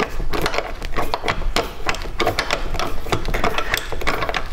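Hand screwdriver driving a 3/4-inch screw through a metal panel faceplate into wooden benchwork: a run of rapid, irregular clicks.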